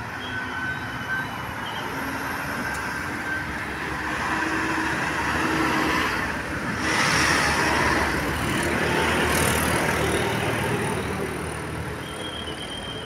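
A road vehicle passing close by with traffic noise, getting louder toward the middle and fading near the end.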